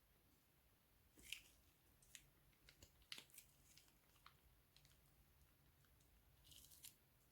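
Faint, irregular sticky clicks and crackles of slime being squeezed and handled, with a louder burst about a second in and a short cluster near the end.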